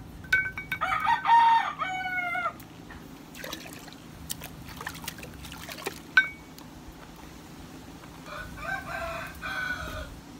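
A rooster crowing twice, the first crow louder, the second near the end. A steel hammer knocks on the anvil with a short metallic ring near the start and again about six seconds in.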